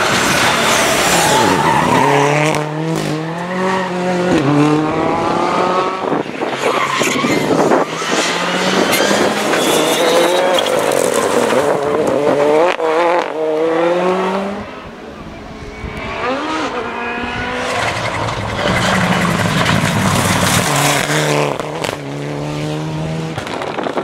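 Turbocharged four-cylinder rally cars passing at full speed one after another, their engines revving hard with the pitch climbing and dropping through gear changes. On the loose corner, the tyres throw gravel.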